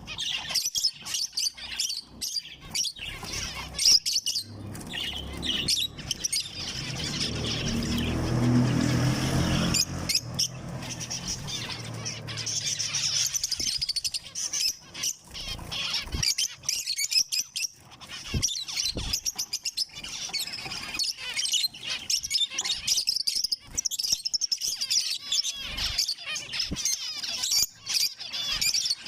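Zebra finches chirping, many short, rapid high calls overlapping throughout. A low rumbling noise joins in for about four seconds near the first third.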